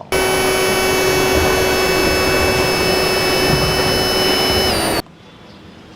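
A loud, steady machine whine over a rushing hiss, with several high tones held level. It starts suddenly and cuts off abruptly after about five seconds, dipping slightly in pitch just before it stops.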